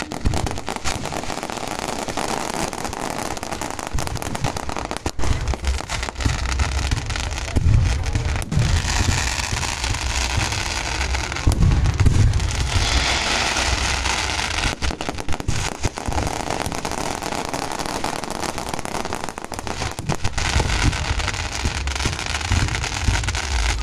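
Aerial fireworks launching and bursting: a string of sharp bangs and deep booms. The heaviest booms come about a third of the way in and again around halfway, each followed by a few seconds of crackling.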